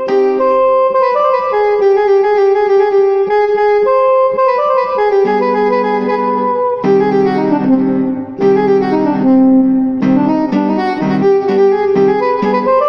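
Instrumental background music: a melody of long held notes stepping from pitch to pitch over lower sustained accompaniment.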